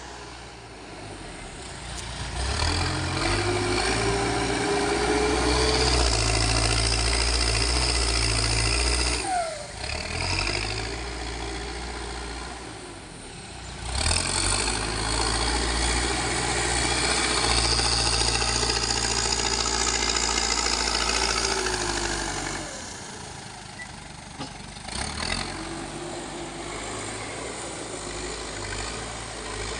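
Backhoe loader's diesel engine running, revving up under load in two long spells and dropping back toward idle between them and near the end.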